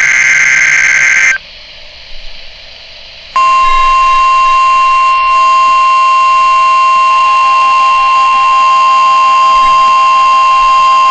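NOAA Weather Radio alert tones played through a weather radio's speaker. A short buzzy digital EAS/SAME data burst ends about a second in. After a pause of about two seconds, a steady 1050 Hz warning alarm tone sounds, with a fainter pulsing tone joining about halfway through. The tones are the station's weekly test of the alarm signal that switches on alert receivers.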